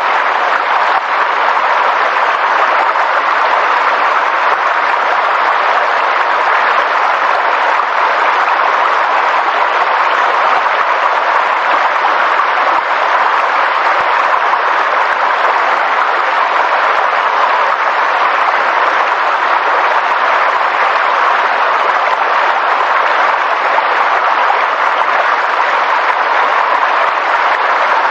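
A steady, even rushing noise of a nature sound, unbroken and unchanging in level.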